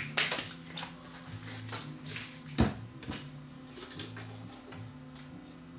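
Hand handling noise on a turntable chassis as a cotton swab cleans a bearing shaft: a few light clicks and knocks, the loudest about two and a half seconds in, over a steady low hum.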